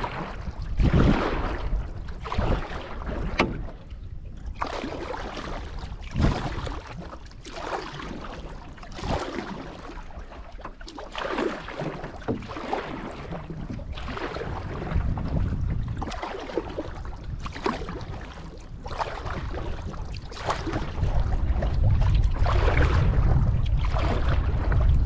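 Canoe paddle strokes in lake water: a splash and swish about once a second, with water dripping in between. A low wind rumble on the microphone grows louder in the last few seconds.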